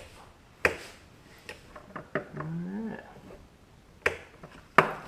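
Hard plastic and metal parts clicking and knocking as they are handled during the switch install: a few sharp clicks, the loudest near the end. A short rising whine comes about two seconds in.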